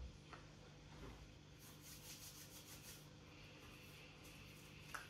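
Near silence: room tone with a steady low hum, a few faint soft clicks, and a brief run of quick, faint rubbing or rustling about two seconds in.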